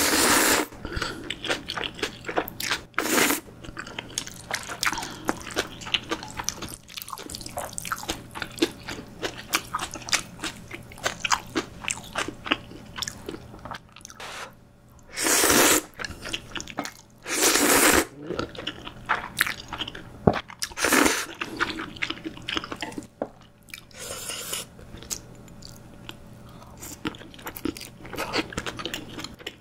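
Close-miked eating of jjajang ramyun (Chapagetti) noodles: several loud slurps of the saucy noodles, with wet chewing and small mouth clicks between them.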